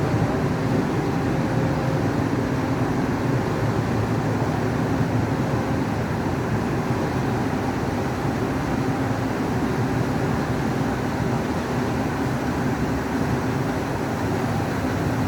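Steady machinery noise, an even drone with a few faint steady tones, running without a break.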